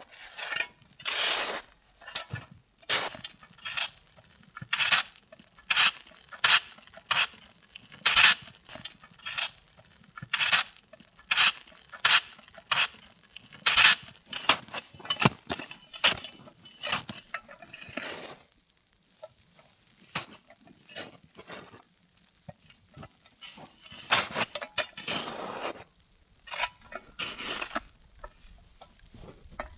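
Snow shovel digging into snow: repeated crunching, scraping scoops, about one or two a second, with a short lull about two-thirds of the way through.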